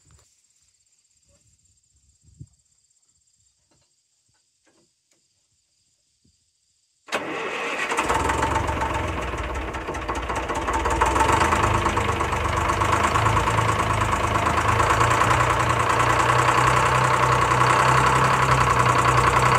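Crickets chirring faintly, then about seven seconds in the old Gradall excavator's engine cranks and catches within about a second, settling into a steady run.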